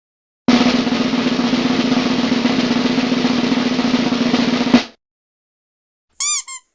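A snare drum roll, about four seconds long, ending in a sharp hit. Near the end come two short, high squeaky chirps.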